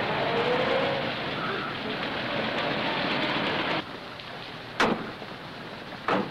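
A late-1930s sedan's engine running as it pulls up, a steady noisy rumble that cuts off abruptly about four seconds in. Then two sharp clacks of the car door: the latch opening, then the door shut hard near the end.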